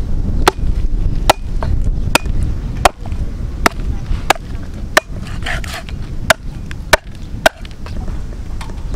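Cleaver chopping through pork ribs on a wooden chopping board: about ten sharp blows, roughly one every three-quarters of a second, with a short pause past the middle.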